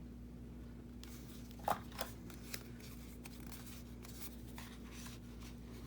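Paper being handled and worked free: scattered rustles and a few sharp clicks and crinkles, the loudest a couple of seconds in, over a faint steady hum.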